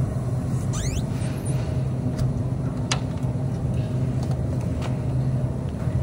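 Steady low hum of a supermarket freezer case's refrigeration, with a brief rising squeak about a second in and a few light ticks.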